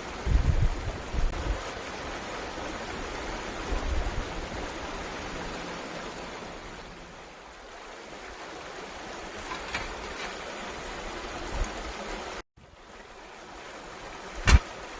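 Steady rush of a flowing stream. A few low thumps come in the first seconds and again a little later, and a sharp knock sounds near the end.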